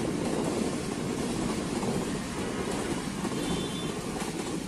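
Passenger train coaches rolling past at speed: a steady rumble of wheels on the rails.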